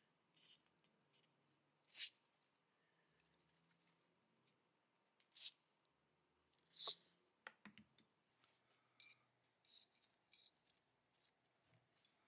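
Small steel parts of a Colt Model 1908 Vest Pocket pistol frame clicking and tapping as they are handled and fitted, with several sharp clicks and quieter ticks in between.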